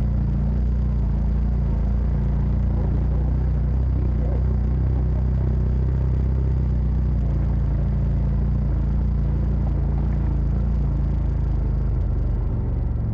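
Side-by-side off-road vehicle's engine running at a steady speed, a constant low rumble with some rattle on top.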